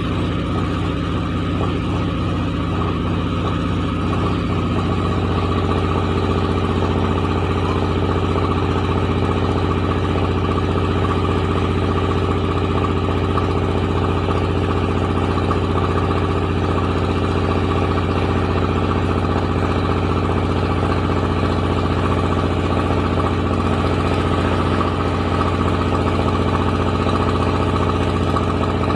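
Rice milling machine running steadily: a continuous mechanical drone over a deep, constant hum, its rattle smoothing out slightly about four to five seconds in.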